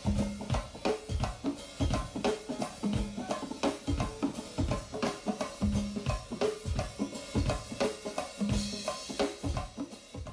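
Drum-led music: a fast drum-kit beat with kick and snare and a low held bass note every few seconds, cutting off abruptly near the end.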